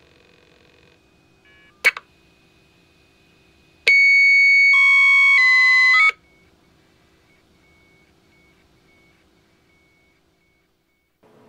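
Dial-up modem tones from the internal speaker of a Protel UPMS 1200 payphone modem: faint steady tones, a sharp click about two seconds in, then about two seconds of loud steady handshake tones that step in pitch partway through. Faint broken beeping follows for a few seconds.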